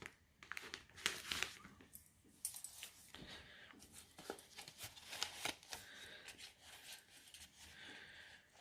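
Faint rustling and crinkling of paper and small plastic packets being handled, with scattered light clicks and taps.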